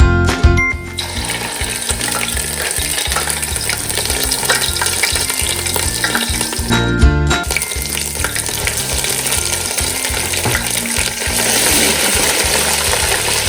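Food sizzling as it fries in hot oil in a pan, a steady hiss that starts about a second in and is briefly interrupted by music about halfway through.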